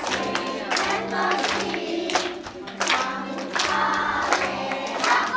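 A group of children singing a song together, with music and a steady low hum underneath.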